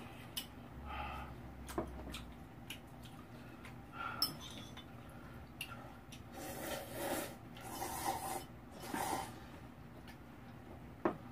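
Quiet table sounds: scattered small clicks and taps of utensils and dishes, with three short hissing rushes in the second half.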